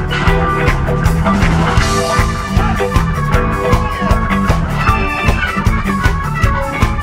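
Rock band playing a live instrumental jam: electric guitar, keyboards, bass guitar and drum kit, with a steady drum beat.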